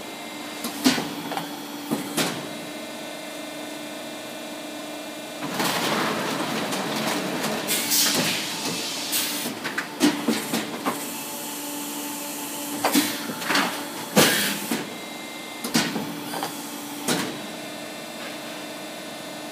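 PVC wall panel thermoforming machine working through a forming cycle: a steady hum with sharp clanks about a second in and at two seconds. A louder stretch of hissing and clatter follows from about six to eleven seconds, then more sharp clanks.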